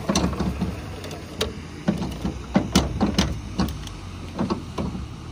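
Irregular clicks and knocks of fishing gear being handled in a boat while rods are set, over the low steady hum of the boat's motor.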